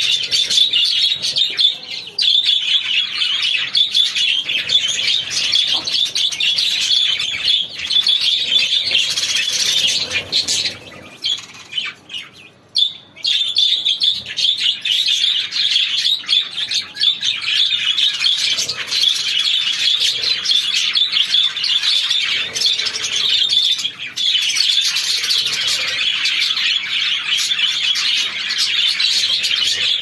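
A flock of budgerigars chattering, a dense, continuous high twittering and chirping. About eleven seconds in the chatter drops away for a couple of seconds, then picks up again.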